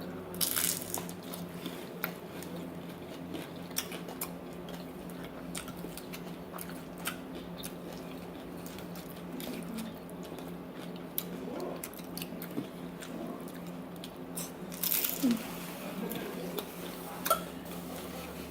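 Crisp fried chicken taquitos being bitten and chewed, with scattered crackly crunches. A louder crunching bite comes about half a second in and another around fifteen seconds in.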